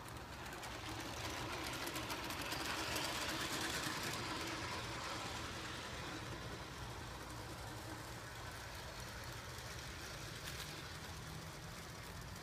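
Train running past, a steady low rumble with rail and wheel noise that swells to its loudest about three seconds in, then settles.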